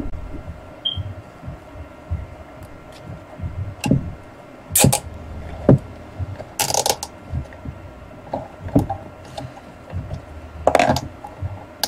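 Hands fastening plastic cable ties around a wooden dowel and a plastic suction cup: scattered clicks, taps and knocks of handling. Short rasping zips of the ties come about five, seven and eleven seconds in.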